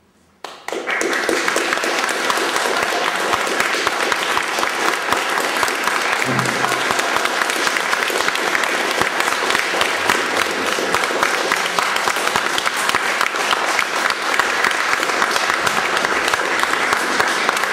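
Audience applause breaking out suddenly about half a second in, then steady, dense clapping.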